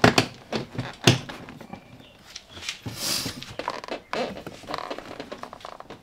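Plastic front door trim panel of a Mercedes W203 being pushed and shifted into place on the door: two sharp knocks in the first second or so, then scraping and small clicks of plastic against the door.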